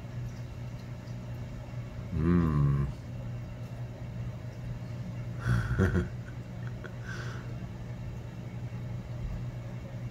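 Steady low electrical hum. About two seconds in, a short tone bends in pitch, and just before six seconds there is a brief louder sound.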